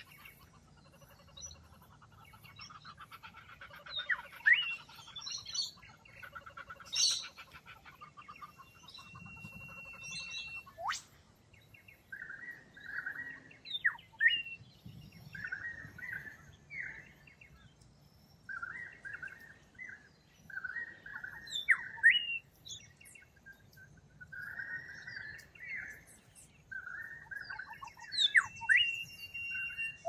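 Mixed wild birdsong, several birds singing and calling together: quick sweeping whistled notes and a held whistle, twice. Through the second half, short runs of a repeated note come about once a second.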